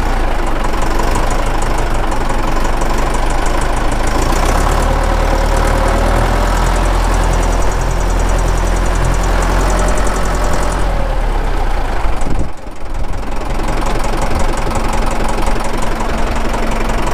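Deutz Intrac 2003 tractor's diesel engine running steadily as the tractor drives slowly in reverse, with a brief dip in the sound about twelve seconds in.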